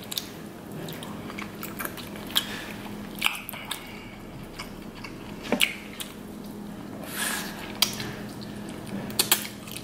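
King crab leg shell being picked apart by sauce-covered fingers: scattered sharp cracks of shell and wet squishes, with chewing near the end.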